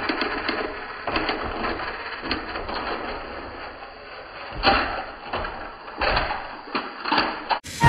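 Motorised plastic toy trains whirring and rattling along a plastic track, with clattering knocks as the engines and trucks tumble off the end of the track; the loudest knocks come about halfway through and again around six seconds in.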